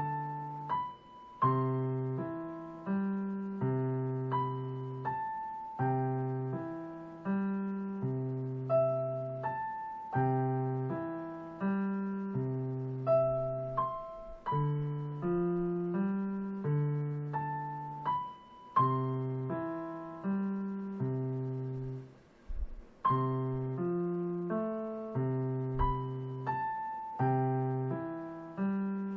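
A student plays a slow, gentle piece in six-eight time on a digital piano: a melody over low left-hand notes, played carefully and evenly. There is a brief break about three-quarters of the way through.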